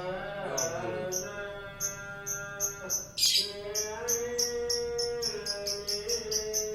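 Lovebird singing a long run of short, high chirps that come faster and faster, with one harsher screech about three seconds in. Underneath is chanted singing with long held notes.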